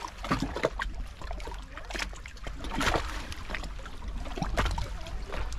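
Small waves lapping and splashing against shoreline rocks: irregular slaps and trickles over a steady low rumble.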